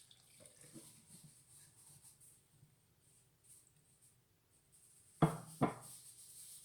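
Quiet handling sounds, then two sharp knocks about half a second apart a little after five seconds in, followed by a light hiss.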